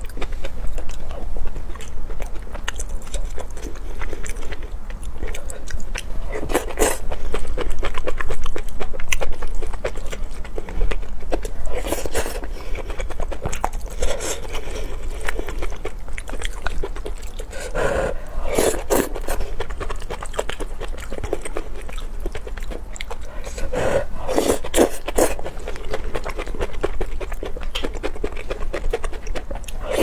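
Close-miked chewing and biting of spicy noodles and rice, a steady stream of small wet mouth clicks. A louder burst of clicks and scrapes comes every five or six seconds, as the wooden spoon scoops from the bowl.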